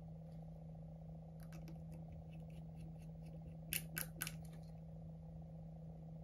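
Small tools clicking on an iPhone 11's internal metal parts while it is put back together: a few faint clicks, then three sharper ones in quick succession about four seconds in, over a steady low hum.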